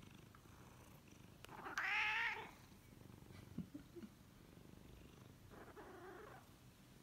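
Domestic cat purring steadily, with a loud meow about two seconds in and a softer meow about six seconds in.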